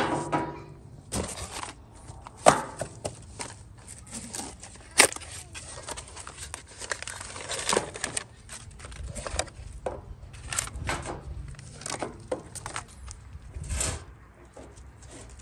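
Hands unpacking a new timing belt kit: cardboard box and plastic bag rustling and crinkling, with irregular knocks and clicks as metal parts are set down and handled on a wooden board.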